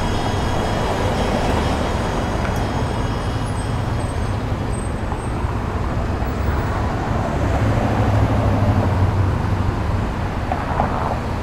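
Steady road traffic noise: a low rumble under a hiss, swelling a little about eight seconds in.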